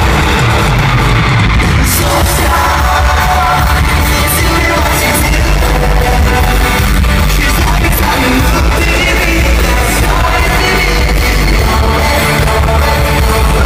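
Pop-punk band playing live over an arena PA, with electric guitars, drums, lead singing and yelling.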